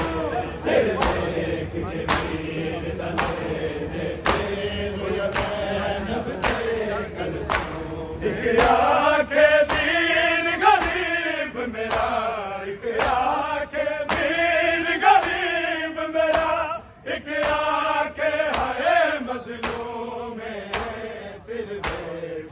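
Men's voices chanting a Punjabi noha together, with steady hand strikes of matam (chest-beating) keeping the beat under a second apart. A louder lead voice with a wavering pitch comes in about eight seconds in and breaks off briefly near the end.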